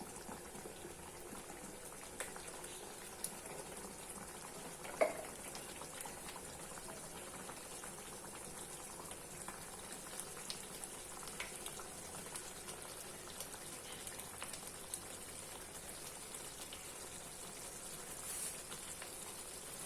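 Broken wheat rava cooking in boiling water in a pan: a faint, steady bubbling with small scattered pops. A single short knock comes about five seconds in.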